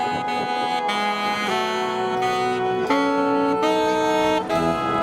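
Marching band of brass and woodwinds playing a slow melody in held notes, the chords shifting every half second to a second.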